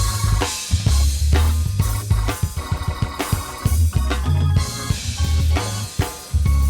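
Upbeat instrumental music with a drum kit, heavy bass and organ.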